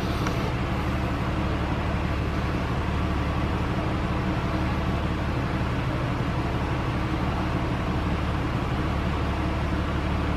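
Porsche 911 Carrera 4's flat-six engine idling steadily.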